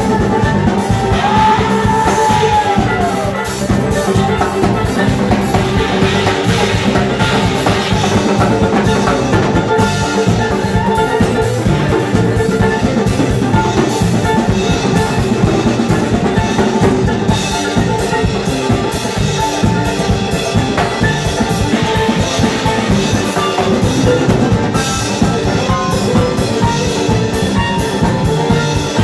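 A live band playing an instrumental with drum kit, guitars and banjo.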